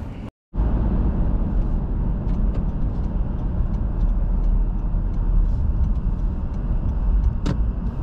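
Car driving: a steady low rumble of engine and road noise, starting after a brief dropout about half a second in.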